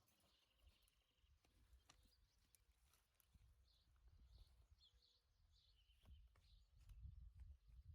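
Near silence with faint bird chirps and a short trill, over a low rumble that grows a little louder near the end.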